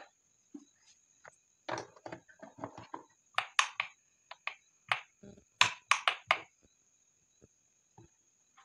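A glass light bulb being screwed into a plastic lamp holder, rattling and scraping. Then come about ten sharp clicks as the one-way rocker switches on the board are flicked on and off.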